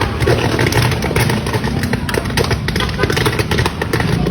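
Electrical arcing on a power line: a dense crackle of sharp snaps over a low buzz.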